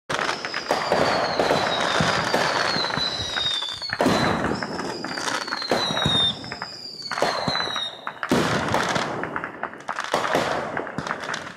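Fireworks going off in quick succession: a dense run of pops and crackles, with several whistling effects, each whistle falling in pitch over a second or two.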